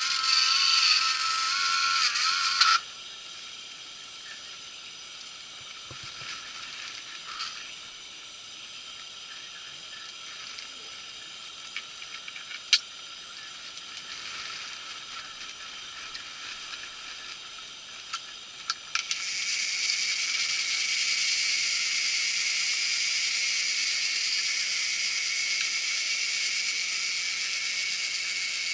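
A wavering whine with hiss that cuts off about three seconds in, then a faint steady hiss with a sharp click. After a few more clicks about two-thirds of the way through, a louder steady hiss.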